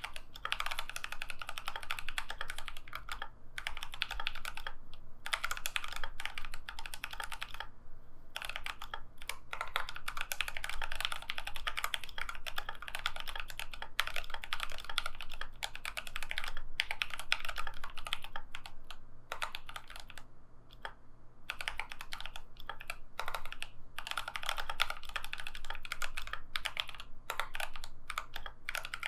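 Fast, continuous typing on a GMMK Pro mechanical keyboard with lightly lubed Durock T1 tactile switches and PBT keycaps: a dense run of key presses, broken by a few short pauses.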